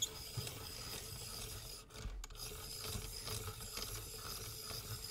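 Caran d'Ache Pencil Sharpening Machine being hand-cranked, its cutter rasping steadily on a wooden pencil, with a brief drop about two seconds in. The point is already fully sharpened and the machine has no automatic stop, so it keeps turning without getting the pencil any sharper.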